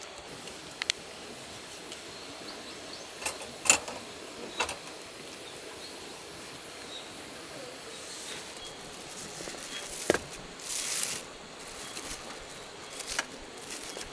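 Scattered sharp knocks and clicks, about half a dozen, over a steady background hiss, with a short rustle a little after halfway.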